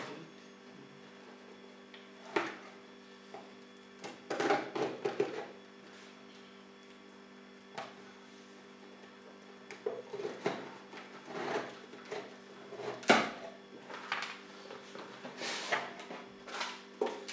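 Small knife slitting packing tape on a cardboard box, then the cardboard flaps being pulled open: irregular scrapes, rustles and sharp clicks, the sharpest about 13 seconds in. A steady low hum sits underneath.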